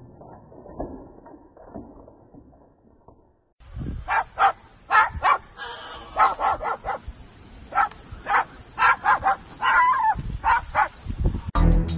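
Parrot mimicking a dog: a rapid string of short barks and yaps lasting several seconds. Before it comes faint scuffling, and music starts near the end.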